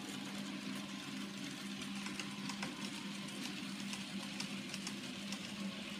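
Graham Farish N gauge model train running: the locomotive's small electric motor gives a steady hum, with scattered light clicks from the wheels on the track.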